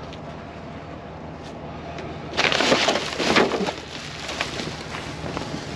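Plastic trash bags and rubbish crinkling and rustling as they are shoved aside in a dumpster, loudest for about a second and a half near the middle, with a few lighter rustles and clicks after. A steady low hum runs underneath.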